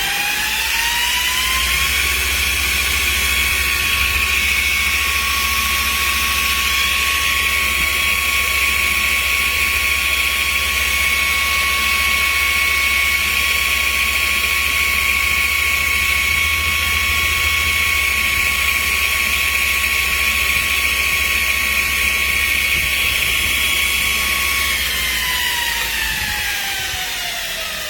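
2" x 72" belt grinder running: its whine rises in pitch as it speeds up at the start, holds steady, then falls as it winds down near the end, over a low hum.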